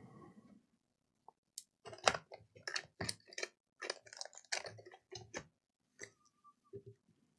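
Quick run of small, sharp clicks and taps from handling a laptop and its screen while the display cable is being connected, after a short soft rustle at the start.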